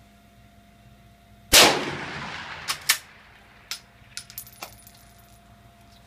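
A single shot from a Finnish M39 Mosin-Nagant rifle (7.62×54R) about a second and a half in, its report dying away slowly under the shooting-shed roof. It is followed by two sharp clicks of the bolt being worked, another click, and then several light metallic clinks with a thin ringing.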